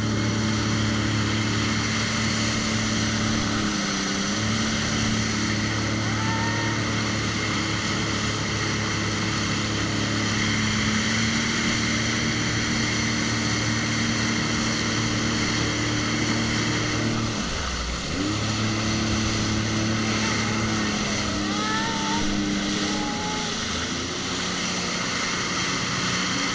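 Jet ski engine running at a steady pitch over rushing water and wind noise. It eases off briefly a few times, most clearly about four seconds in and around seventeen seconds.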